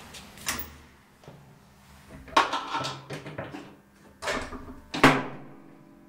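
Metal doors of a 1942 Siemens elevator being shut: a series of knocks and clanks, each ringing briefly, the loudest about five seconds in.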